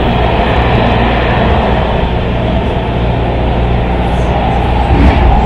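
MARTA heavy-rail car running, heard from inside the car: a loud steady rumble of wheels on rail with a low motor hum underneath, and a few louder knocks near the end.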